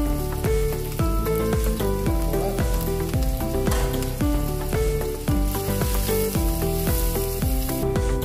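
Chopped red onions sizzling as they fry in hot fat with whole spices in a pan. Instrumental background music with a steady beat plays over it.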